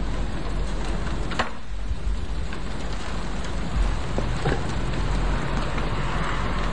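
Thunderstorm downpour: a steady hiss of heavy rain over a low rumble, with a few sharp taps, the clearest about a second and a half in and another near four and a half seconds.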